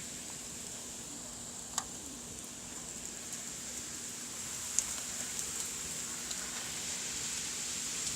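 Steady rain falling, a fairly even hiss, with a faint low hum under it. Two sharp ticks stand out, about two seconds in and again near five seconds.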